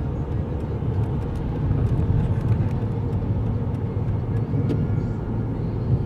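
Steady road and engine rumble inside the cabin of a moving car.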